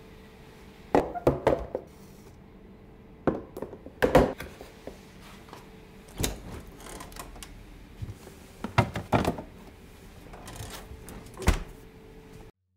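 Stainless-steel food containers with snap-lock lids clacking and thudding as they are handled, stacked and set down on a stone countertop: about a dozen sharp knocks in irregular clusters. A refrigerator door is handled near the end.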